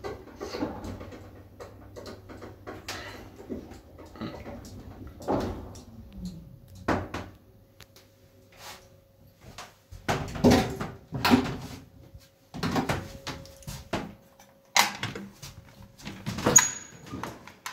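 Old Stigler passenger lift arriving at the ground floor. A low hum from the drive ends about six seconds in with a short falling tone, and a faint steady tone follows. Then comes a series of clunks, knocks and latch clicks as the wooden cabin doors and the landing door are opened.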